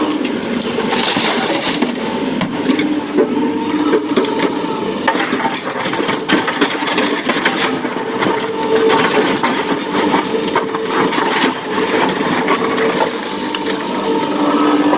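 Excavator engine and hydraulics running with a steady pitched hum, while rock and stones clatter and crunch in many small knocks as a truck is loaded.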